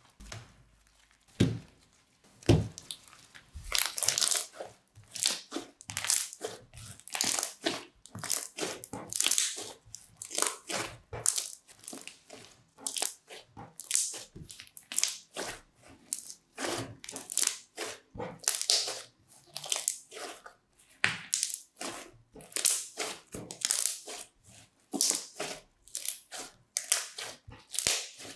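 Crunchy slime squeezed and kneaded by hand, crackling and popping as it is worked. A few separate pops in the first seconds, then a steady run of short crunchy crackles, about two a second.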